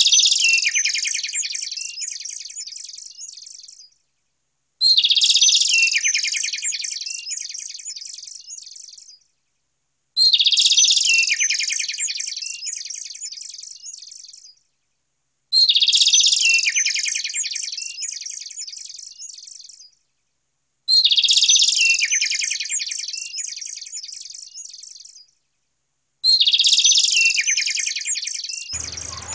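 Birdsong recording laid on as an intro sound: a burst of rapid high chirps and trills that starts loud and fades over about four seconds, looped so it repeats identically about every five seconds.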